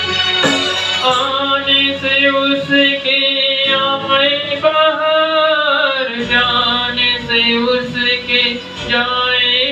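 Man singing a Hindi film song into a handheld microphone over recorded backing music, the melody gliding and holding long notes.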